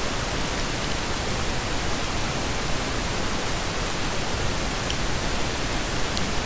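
Steady hiss from the recording's microphone and noise floor, with a couple of faint clicks.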